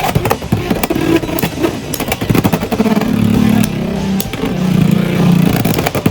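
Beyblade X spinning tops battling in the arena: a steady whirring hum that shifts in pitch, broken by many quick clacks as the tops collide.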